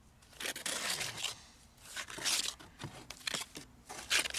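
Steel trowel scraping and spreading wet cement plaster over a concrete foundation wall, in several short strokes.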